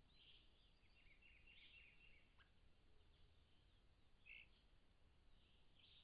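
Faint wild bird calls: a quick run of short high chirps in the first two seconds, then a single short call about four seconds in and another near the end, over a steady low hiss from the trail camera's microphone.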